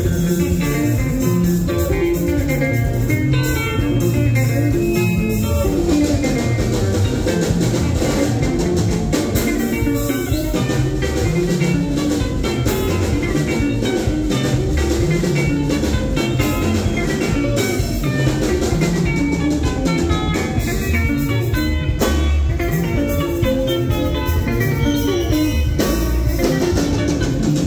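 Live band playing sungura-style music: interlocking electric guitars over bass and a steady drum-kit beat.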